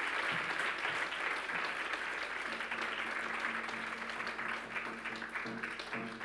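Seated audience applauding: steady clapping from many hands that thins slightly toward the end.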